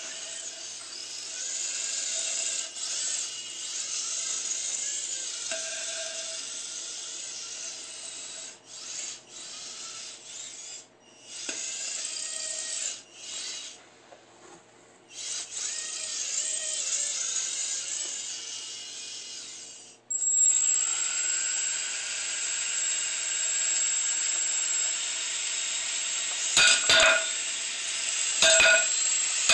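Antweight combat robot's spinning saw-disc weapon and drive motors whining at a high pitch. The whine cuts in and out several times, then picks up sharply and runs steady. Near the end come two sharp hits as the spinning disc strikes the wooden board.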